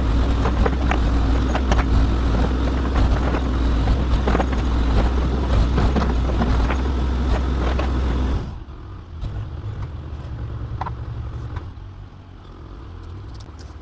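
Old backhoe's diesel engine running hard while digging, with scattered sharp knocks and clunks, then dropping to a much quieter idle about eight and a half seconds in.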